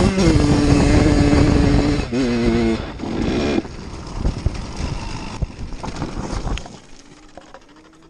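Kawasaki KX100 two-stroke dirt bike engine running at speed, heard from on board, with a brief change in pitch about two seconds in, then cutting out abruptly about three and a half seconds in. After that only wind and tyre noise as the bike coasts, dying away near the end.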